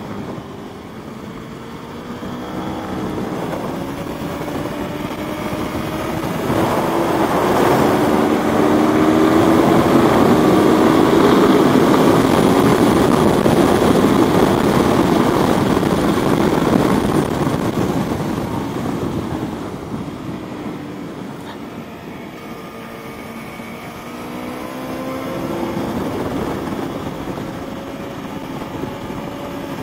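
Aprilia Tuono V4 motorcycle's V4 engine pulling hard with rising pitch, under a heavy rush of wind noise at speed. Around two-thirds of the way through it backs off, then pulls again with rising pitch near the end.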